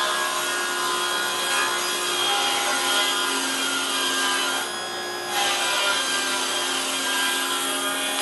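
Table saw ripping a wooden wheelbarrow handle lengthwise to slim it down: a steady high whine of blade and motor over the cutting noise, easing briefly about halfway through before the cut carries on.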